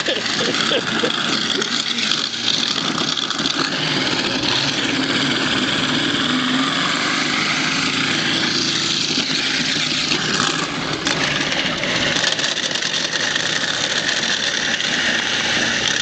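Garbage disposal running and grinding chunks of raw pumpkin into pulp: a steady, loud grinding noise over the motor's low hum.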